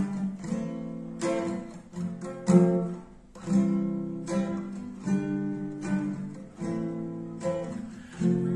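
Background music: an acoustic guitar strumming chords, a new strum every half second to a second, each left to ring.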